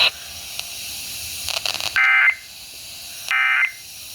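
Emergency Alert System end-of-message data tones over FM radio: two short, buzzy bursts of digital warble about a second and a half apart, over faint radio hiss. These bursts signal that the alert broadcast has ended.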